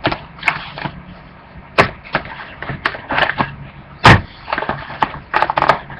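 Trading card packaging being handled and opened: scattered short crinkles and clicks, with one sharper click about four seconds in.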